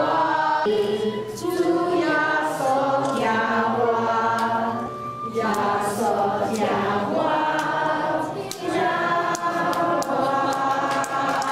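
A group of voices singing together in held notes, like a choir.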